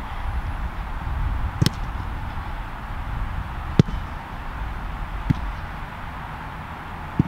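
A soccer ball being kicked back and forth: four sharp thuds of boot on ball, one every second and a half to two seconds, over a low steady rumble.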